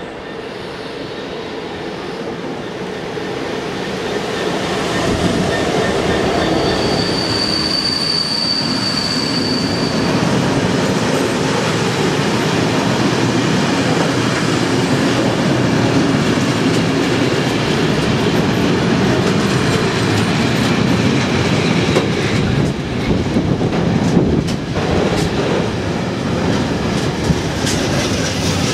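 Two GBRf Class 66 diesel locomotives, EMD two-stroke V12 engines, approaching and passing, the sound growing louder over the first five seconds, with a single high wheel squeal held for a few seconds about seven seconds in. Then the hopper wagons of the train roll steadily past on the rails, with a few sharp knocks from the wheels about 22 to 25 seconds in.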